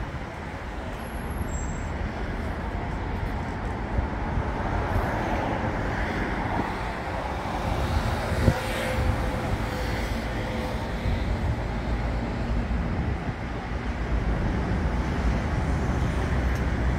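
Steady street traffic noise as an electric tram rolls slowly in to the end of its track, with a faint whine and a single click about halfway through.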